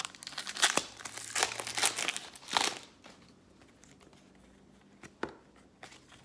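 A trading-card pack wrapper being torn open and crinkled for about three seconds, then a single short click about five seconds in.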